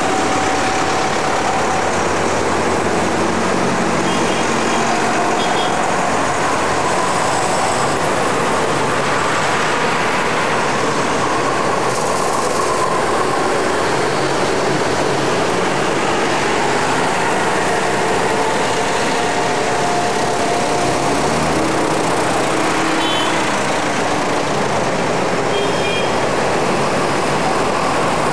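Farm tractors' diesel engines running steadily as a procession of tractors drives past one after another, with a green John Deere passing close by about halfway through.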